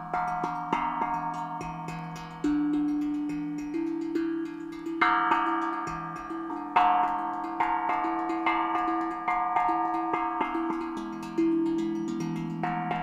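Tuned steel hand drum played with the fingertips: a quick, continuous stream of struck notes that ring on and overlap over a sustained low note, with a few harder strokes standing out.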